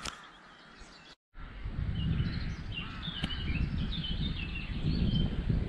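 Birds chirping in many short calls over gusty wind rumbling on the microphone. A faint first second ends in a brief dropout before the wind and birds come in.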